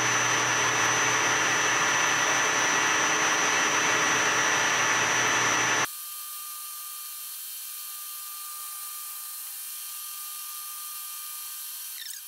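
Metal lathe turning down steel bar stock with a carbide insert: a loud, steady cutting noise with a high whine, the chips breaking into short pieces rather than a long springy string. About six seconds in the cutting noise stops suddenly, leaving the quieter steady hum of the lathe still spinning, with a brief click near the end.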